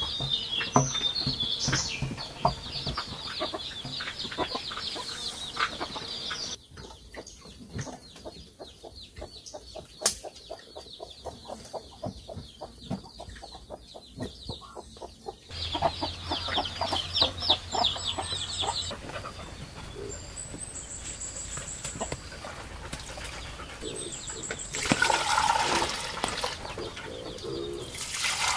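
Farmyard background of chickens clucking and birds calling. Near the end, water is poured from a plastic basin and splashes into a split-bamboo trough.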